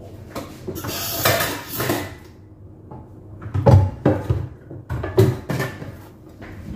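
Kitchenware being handled at a sink: a frying pan and plastic cutting boards being moved and set down, with a few sharp clunks in the second half.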